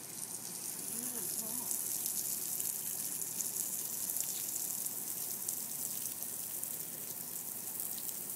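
Garden hose with a pistol-grip spray nozzle spraying water onto a vegetable bed: a steady high hiss.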